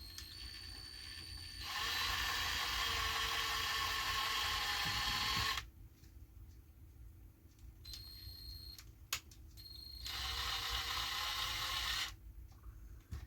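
Electric drill boring small holes in a cuckoo clock's bellows, in two runs under load of about four and two seconds. Between them the motor gives a quieter high whine.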